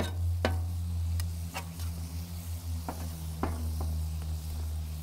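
Metal spatula and knife tapping and scraping on a hot steel griddle top as braised beef is chopped up, about six sharp clicks spread through, with light sizzling and a steady low hum underneath.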